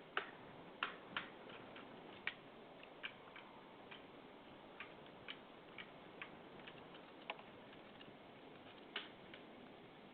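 Light knocking sounds at irregular intervals, about twenty short sharp knocks in ten seconds, a few louder than the rest (the loudest near the start and again late on), over a faint steady hiss.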